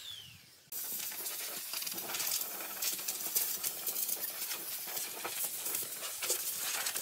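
A handheld sanding-disc power tool spinning down in a falling whine, then irregular small clicks and scrapes of a hand tool working against the wood of a pine box.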